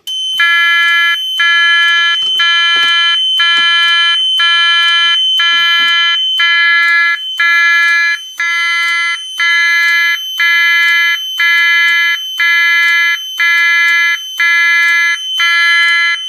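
Fire alarm system sounding on test with an E2S A100 sounder and a Simplex 4251-20 appliance: a steady high-pitched tone runs under a second tone that pulses about once a second, roughly 60 beats a minute. It comes on at the very start and keeps going steadily.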